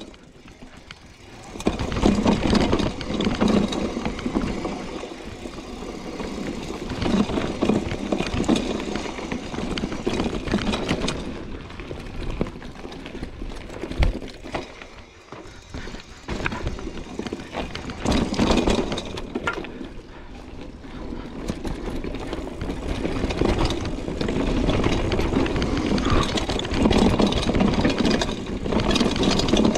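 Mountain bike riding down a downhill trail: tyres rumbling over rough ground and the bike rattling over bumps, the noise rising and falling in level.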